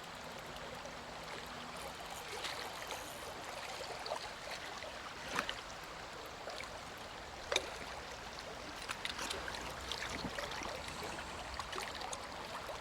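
Creek water running steadily over a riffle, with a few short sharp sounds, the loudest about five and a half and seven and a half seconds in.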